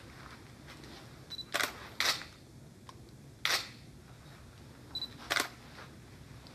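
DSLR camera shutters clicking four times, the first two close together about a second and a half in, then one near the middle and one near the end. The first and last clicks each come just after a short high beep, the camera's focus-confirmation signal.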